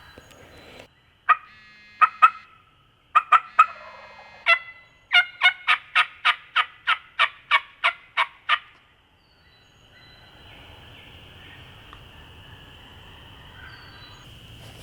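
Wild turkey calling close by: a series of sharp, evenly spaced yelps, a few scattered notes at first and then a steady run of about three a second, ending suddenly about two-thirds of the way through.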